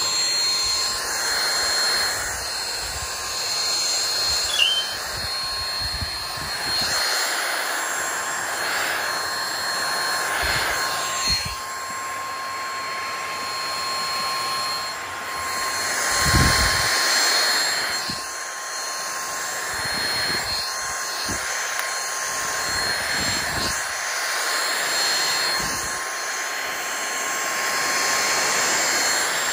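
Dyson cordless stick vacuum with a pet grooming brush attachment, running steadily while it is drawn through an Akita's coat. The motor gives a high whine with several steady tones, and the rush of air swells and dips as the brush moves. A few soft low bumps come from handling.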